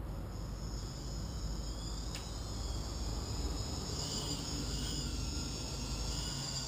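A MultiWii multicopter's brushless motors whining. The pitch rises as they spin up, then wavers up and down from about four seconds in as the craft lifts off the ground. There is a single sharp click about two seconds in.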